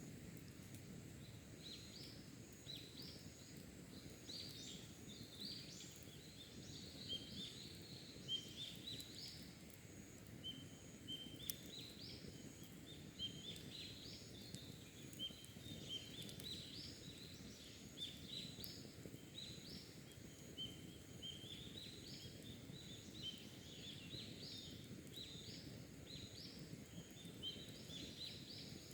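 Wild birds singing and chirping, many short rising notes in quick phrases, over a faint steady low background hiss.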